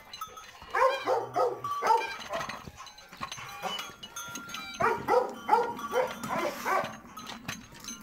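An animal calling in two quick runs of short, pitched calls, one about a second in and another about five seconds in.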